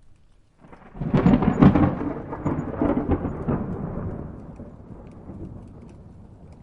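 Thunder: a sudden clap about a second in, with several sharp cracks, then a rolling rumble that slowly dies away.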